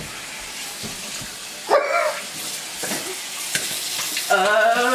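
Bathroom sink tap running with a steady hiss. A short vocal sound comes about two seconds in, and a longer rising vocal sound near the end.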